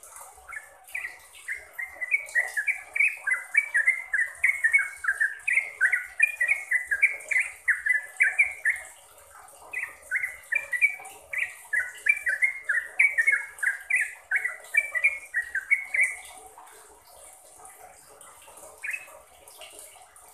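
Yellow-vented bulbul (trucukan) singing: two long runs of quick, bubbly chirping phrases, each about seven seconds, with a short pause between them, and a single note near the end.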